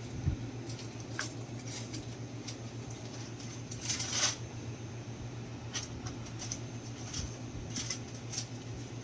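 Shop interior ambience: a steady low hum with scattered small clicks and rustles of things being handled, and a louder rustle about four seconds in.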